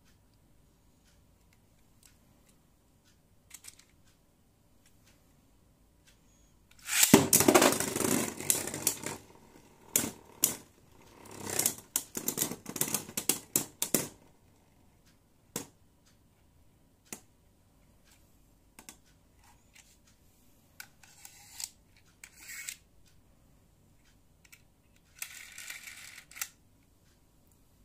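A Beyblade Burst top ripped off a digital sword launcher about seven seconds in, then spinning and clattering against the plastic stadium in loud rattling bursts for several seconds. Scattered light plastic clicks follow, and a short rattle near the end as the ratchet sword ripcord is slid into the launcher.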